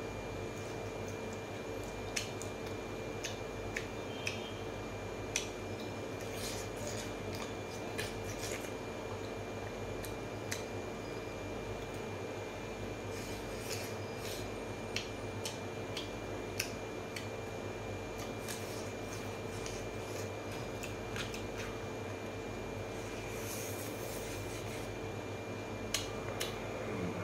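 Eating by hand: scattered soft clicks, chewing and mouth sounds, and fingers working rice on a steel plate, over a steady hum.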